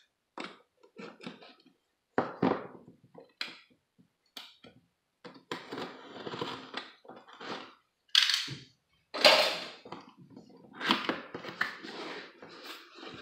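A cardboard box being opened: a plastic tool scrapes and slits the sticker seal on the flap, then the flap is pried up, giving irregular scrapes, taps and rustles of card and plastic, loudest past the middle.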